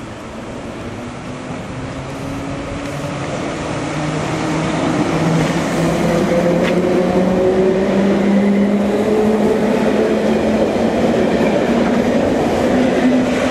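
1938 tube stock electric train moving past along the platform, its traction motors whining upward in pitch as it gathers speed, with wheel and rail rumble growing louder as it nears.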